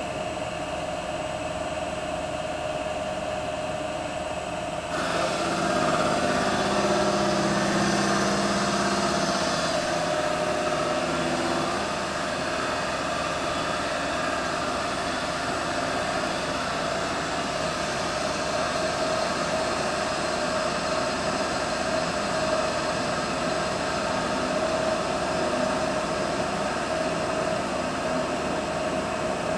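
CNC lathe machining a cast aluminium part under flood coolant, heard through the mostly shut door: a steady machine sound with a constant whine. About five seconds in it grows louder and noisier for several seconds, then settles back to a steady run.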